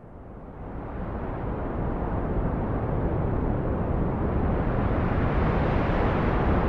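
Wind rushing over the microphone of a drone in flight: a low rumble with no engine or propeller pitch in it, building over the first couple of seconds and then holding steady.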